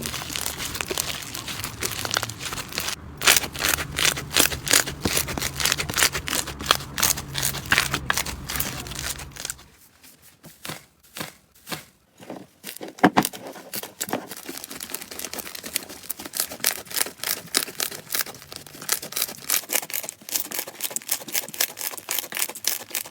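Slime being squeezed and worked by hand, giving rapid crackling clicks and small pops. The sound thins to a few scattered clicks about ten seconds in, then builds back up.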